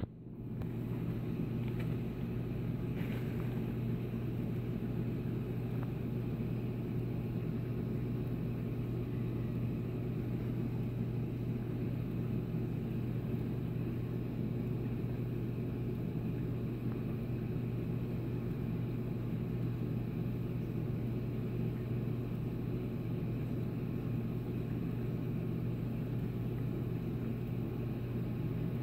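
Steady low electrical hum of reef aquarium pumps running, unchanging throughout.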